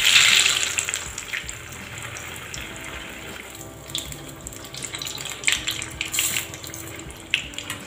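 A breadcrumb-coated bread round deep-frying in hot oil: a loud burst of sizzling as it goes in, settling within a second or so into a steady bubbling hiss with crackles. A few sharp clicks come in the second half as a steel slotted spoon turns it in the pan.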